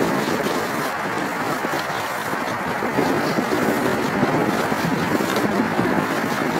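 Wind buffeting the microphone in a steady rush, with the rustle of a nylon rain coat flapping against it.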